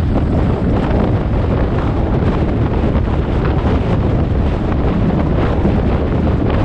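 Steady wind buffeting the microphone over the low rumble of a car driving at speed on a highway.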